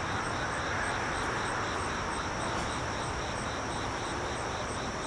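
Insects chirping steadily in a regular pulse of about three a second, over a steady high drone and a low, even outdoor hiss.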